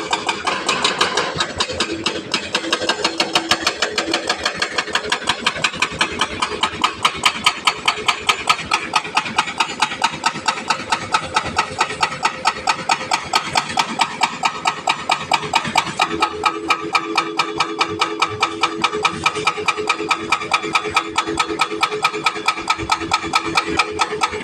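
Sany excavator's hydraulic rock breaker hammering rock, a rapid, even train of blows several a second over the machine's running diesel engine.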